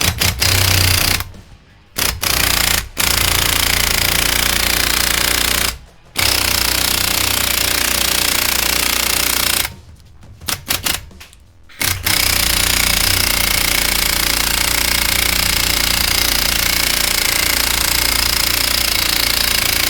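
Impact wrench hammering on a seized bolt in a leaf-spring bushing, a hard rattling with a steady whine, run in several bursts with short pauses, the last about eight seconds long. The bolt is seized in the bushing and spins with the bushing's inner sleeve instead of coming free.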